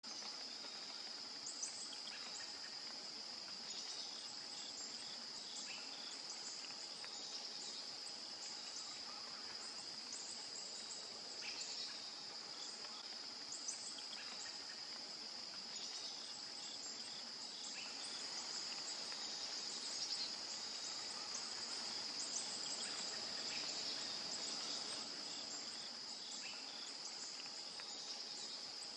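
Steady high-pitched chorus of insects trilling, with a few brief faint chirps scattered through.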